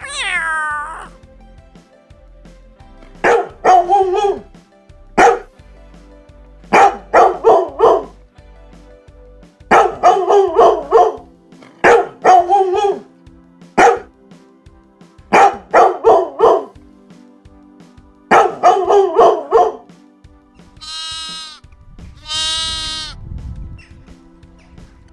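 A dog barking in quick runs of several barks, a run every second or two, over a faint music bed. A cat's meow fades out at the very start, and two long bleats come near the end.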